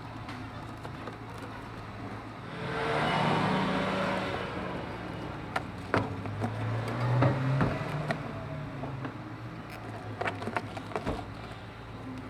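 Car engine running with a steady low hum, swelling louder for a couple of seconds about a third of the way in and again briefly around the middle, with a few sharp clicks or knocks.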